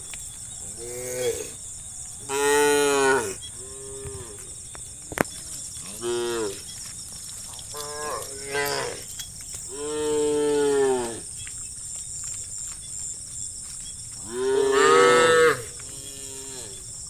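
Cattle mooing repeatedly: about eight moos in turn, some short, the loudest lasting about a second, over a steady high hiss.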